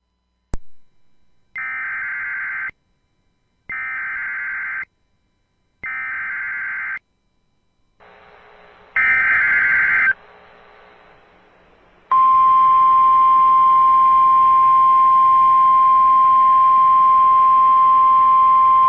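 Emergency Alert System SAME header: after a click, three one-second bursts of warbling data tones, then hiss and a fourth, louder burst. About twelve seconds in comes the steady single-pitch NOAA Weather Radio warning alarm tone, which announces a weather warning.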